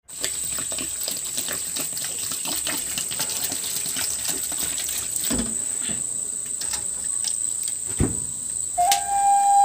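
A steady high-pitched insect drone over a hiss full of small clicks and crackles, with a couple of soft thumps. A flute melody comes in near the end.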